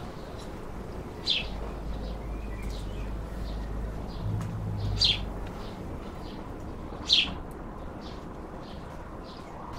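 Garden birds chirping: repeated short high chirps, three of them louder at about one, five and seven seconds in, over a low rumble that runs from about a second in to about six seconds in.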